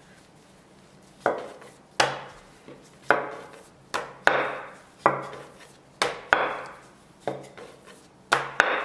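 Wooden rolling pin rolling out dough on a wooden board: a sharp knock as the pin comes down, then a short rolling rumble, about once a second after a quiet first second, with two knocks close together near the end.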